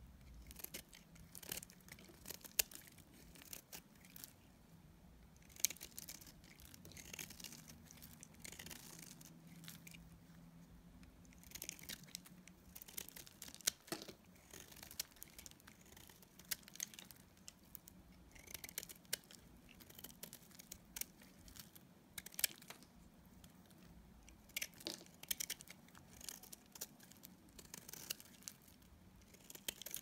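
Snap-off utility knife blade shaving curls off a bar of dry soap: repeated crisp scraping and crackling cuts, mostly short, with a few longer scrapes.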